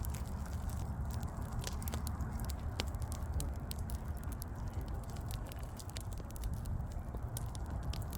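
Wood fire burning, with frequent small sharp crackles and pops over a steady low rumble of the flames.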